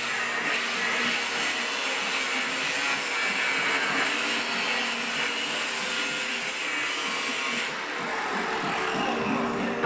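A small motor running steadily, with a whirring sound that changes abruptly about eight seconds in.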